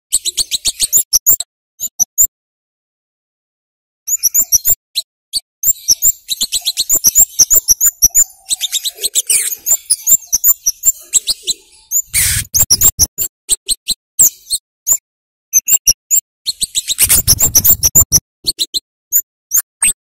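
Scarlet-headed flowerpecker giving rapid, sharp, high 'cit' calls in quick runs, pausing briefly about two seconds in. Two short bursts of rustling noise come about twelve and seventeen seconds in.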